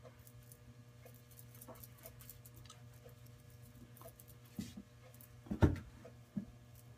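Quiet handling sounds of a powder brush applying bronzer to the face: soft brushing and small ticks, with one louder knock about five and a half seconds in and a couple of smaller ones around it, over a faint steady hum.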